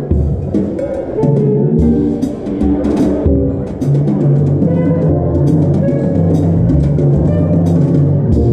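Jazz combo playing: a drum kit played with brushes gives many quick snare and cymbal strokes over held electric bass notes and other pitched instruments.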